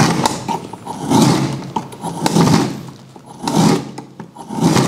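Manual lever-type frozen-meat slicer cutting thin rolls from a frozen lamb block: the blade scrapes through the meat in strokes a little over a second apart, about five times.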